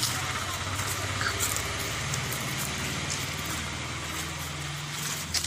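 An engine running steadily: a low pulsing hum under a constant hiss, with a brief knock near the end.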